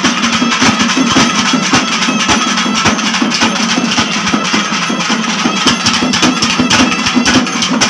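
Ensemble of barrel drums beaten in a fast, dense rhythm, with a steady held tone sounding over the drumming.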